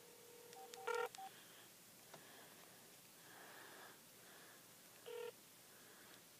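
Faint ringing tone of an outgoing call on a cell phone's speaker. The ring ends about a second in with a few short electronic beeps, and a brief burst of tone near the end is cut short.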